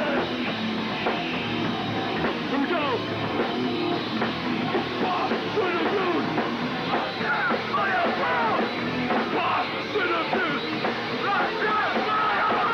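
Hardcore punk band playing live, with electric guitar and drum kit.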